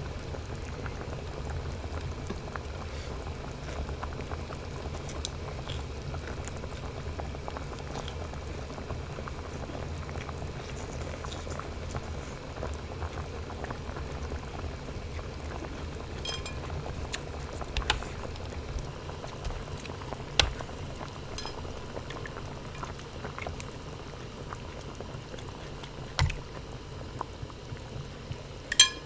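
Hot pot broth bubbling steadily in its pot, with a few light clicks and knocks.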